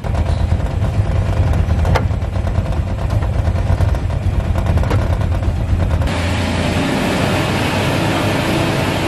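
Mini dump truck's small engine running at idle with a steady low throb, with two sharp clicks as the PTO and hydraulic levers in the cab are worked. About six seconds in, the sound turns to a steadier, hissier engine noise.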